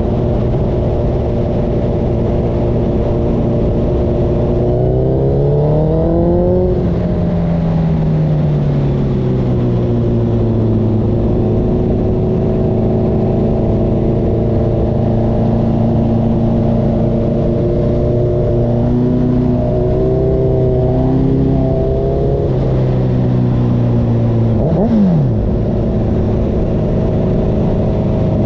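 Honda CB1000R inline-four motorcycle engine running through a CS Racing full exhaust system. The note is steady, with one rise in revs about five seconds in that eases back slowly, a few small throttle blips later on, and a quick drop and pick-up in revs near the end.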